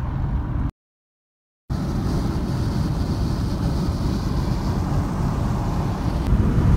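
Road noise heard inside a moving car's cabin: a steady low rumble of tyres, engine and wind. It drops out to dead silence for about a second near the start, then resumes unchanged.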